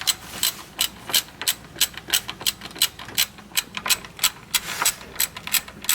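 Ratchet wrench clicking in a steady rhythm, about three clicks a second, as it is worked back and forth on the belt tensioner to take the tension off the drive belt.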